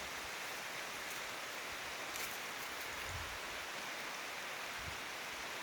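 Heavy rain falling steadily, an even hiss of large raindrops pouring down.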